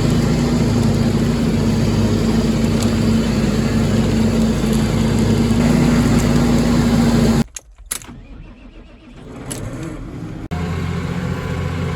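Vehicle engine running steadily, then cutting off abruptly about seven seconds in. A quieter spell with a few clicks follows, and a tractor engine takes over, running steadily from about ten and a half seconds, as heard while ploughing.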